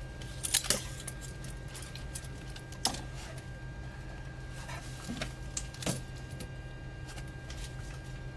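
Scattered sharp clicks of cockpit switches and equipment being handled in a KC-135 cockpit, over a steady low hum and a thin, steady high whine from the aircraft's systems.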